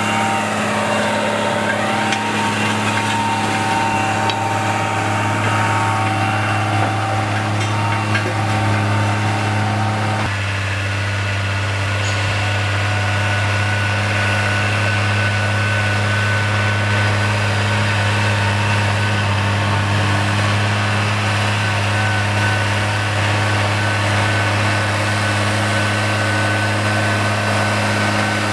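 Farm tractor's diesel engine running steadily under load while pulling a disc ridger through soil. The engine note changes abruptly about ten seconds in.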